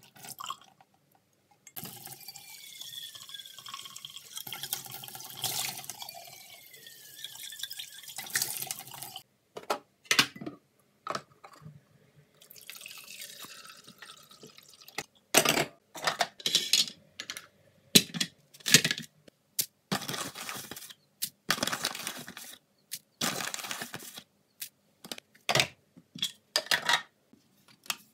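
Liquid pouring from a Moccamaster coffee maker's glass carafe into a steel kitchen sink, and the carafe being filled with water and poured into the coffee maker. In the second half come many short separate sounds: brief pours, clinks of glass and knocks.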